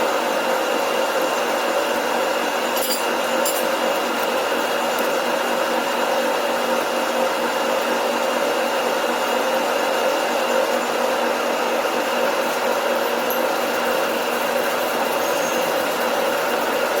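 Metal lathe running steadily: a constant machine drone with a few steady whining tones.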